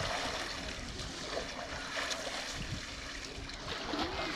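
Sea water sloshing and trickling, an even watery noise over a low rumble.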